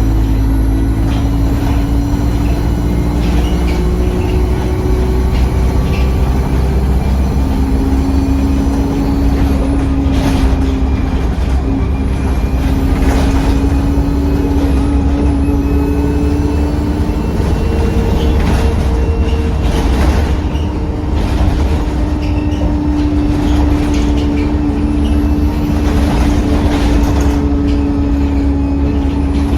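Diesel bus running on the road, heard from on board: a steady low engine rumble with whining tones that drift up and down. A faint high turbocharger whistle rises and falls several times over it.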